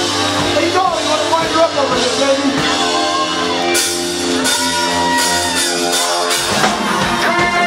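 Punk rock band playing live and loud: electric guitars, bass guitar and drum kit. About six seconds in the bass drops out briefly and the song moves into a new section.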